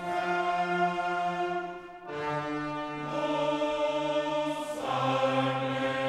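Background music of slow, held chords with choir-like or brass-like voices, changing chord about two seconds in and again near five seconds.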